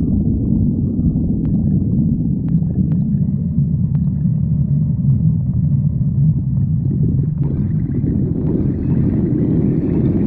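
Stomach growling: a continuous low, rumbling gurgle, with higher gurgling sounds joining about three-quarters of the way through.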